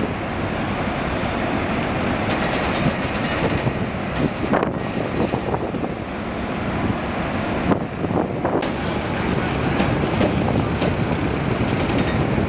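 Steady mechanical rumble and noise of a ship's vehicle deck during a helicopter offload, with a few short knocks and clanks.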